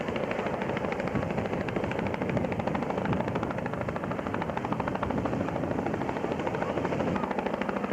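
Boeing Vertol CH-113 Labrador tandem-rotor helicopter hovering, its rotors giving a steady, rapid chop.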